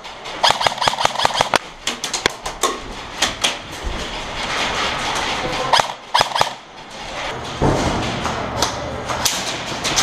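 Airsoft guns firing in an indoor arena: a quick run of sharp snapping clicks at first, then scattered single clicks over the rustle of moving gear.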